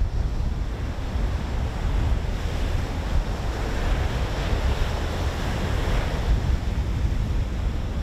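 Ocean surf breaking and washing up the shore, with wind rumbling on the microphone.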